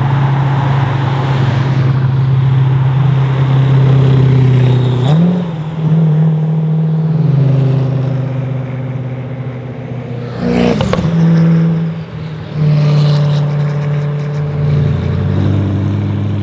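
Koenigsegg Agera RS's twin-turbocharged V8 with titanium exhaust, running at low revs as it drives off: a steady deep engine drone that changes pitch several times, with a short sharp burst of noise about ten and a half seconds in.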